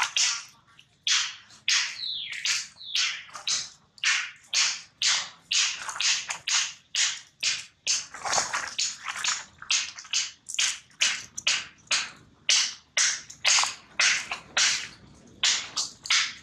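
Footsteps crunching through dry leaves and sandy ground at a steady walking pace, about two to three steps a second.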